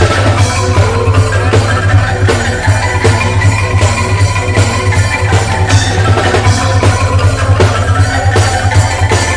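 Street band of bamboo instruments, calung struck with mallets and racks of angklung, playing a lively tune over drums and a strong, steady bass line.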